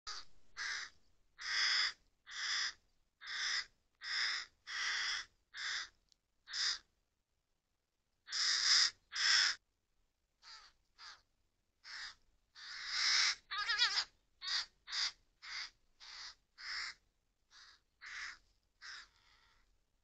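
Hooded crows cawing: a long series of harsh caws, about one or two a second, with a pause of about two seconds around seven seconds in.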